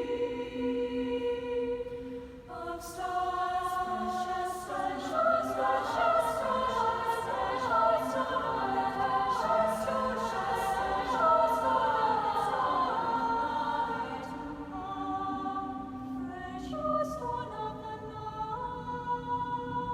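A choir singing held, layered chords that shift from one to the next, with a run of sharp clicks over the singing from about three to twelve seconds in and a few more later.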